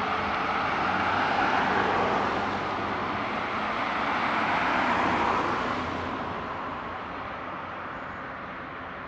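Heavy fire engine (HLF 20/16 rescue pumper) driving past, its engine and road noise swelling twice and then fading away after about five seconds.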